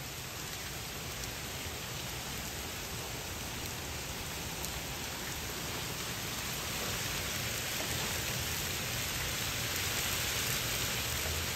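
Hail falling steadily on a concrete patio and doormat: a dense, even patter of many tiny impacts that grows a little louder in the second half.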